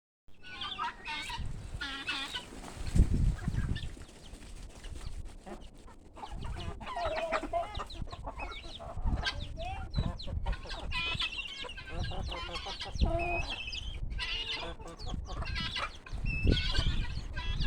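A flock of guinea fowl calling: many short, repeated harsh calls overlapping one another, with low rumbles at times.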